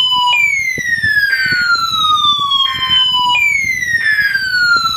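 Weather radio receiver's alert siren sounding for the weekly test: a loud repeating falling sweep, a new sweep about every three seconds.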